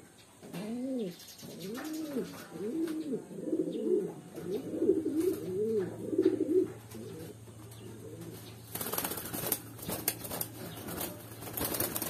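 Racing pigeons cooing in a breeding cage, a run of repeated rising-and-falling coos for the first six seconds or so. From about nine seconds in comes a flurry of wing flapping.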